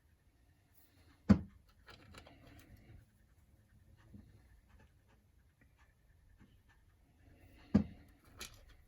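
Two sharp knocks about six seconds apart, with faint clicks and light scraping between: tools and small parts being handled and set down on a work surface.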